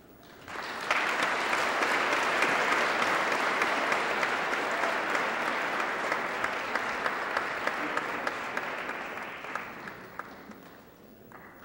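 An audience applauding, starting about half a second in, holding steady, then dying away near the end.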